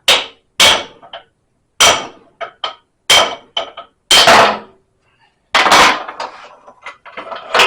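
Hammer blows on a machined drift tool driving the pinion gear out of a GM 8.5 rear axle housing: sharp metallic strikes with ringing, about one a second, with lighter taps between them.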